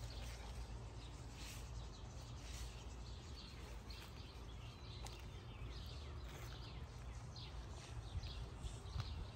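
Faint outdoor ambience of small birds chirping in many short, falling calls, over a low steady rumble.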